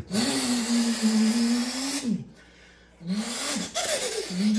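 A man imitating a Toyota Supra's engine by mouth: a buzzing engine note held for about two seconds, then a short break, a quick rise and drop in pitch like a rev between shifts, and another held note near the end, with a breathy hiss over it.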